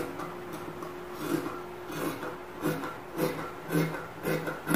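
Fabric scissors cutting through black fabric folded in four layers: a run of about seven crunchy snips, roughly two a second, beginning about a second in.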